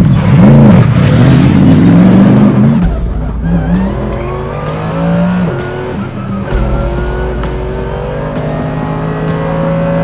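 Mercedes-AMG GT3's naturally aspirated V8 racing engine heard from inside the cabin at speed. For the first three seconds or so its pitch swings quickly up and down several times, then it climbs steadily under acceleration.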